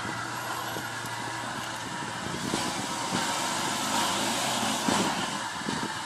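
Lifted UAZ Patriot's engine running under load as the truck on oversized mud tyres crawls through a deep dirt trench. The sound grows louder and rougher from about halfway in, with a few knocks.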